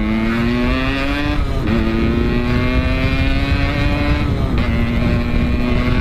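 Small motorcycle engine accelerating hard through the gears: its pitch climbs, drops sharply at an upshift about a second and a half in, climbs again, and drops at a second shift about four seconds in. Wind rumble on the microphone runs under it.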